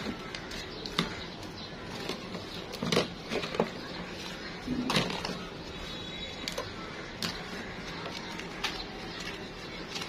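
Plastic Kinder Joy egg shells clicking and knocking together as they are picked up and handled, a scattering of sharp clicks with a couple of small clusters, over a steady hiss.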